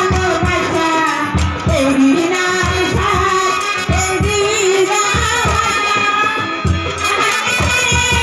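A woman singing a Bengali folk-style song into a microphone over a PA, with a live band of drums and other instruments keeping a steady drumbeat under her voice.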